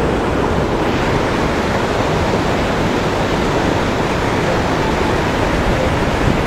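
Fast mountain river rushing over rocks: a loud, steady white-water roar.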